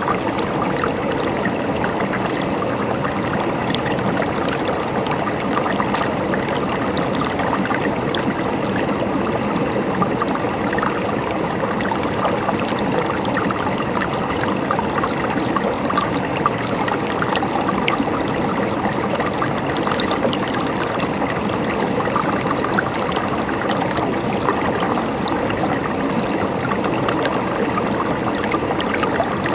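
Running water, a steady splashing trickle with no change in level.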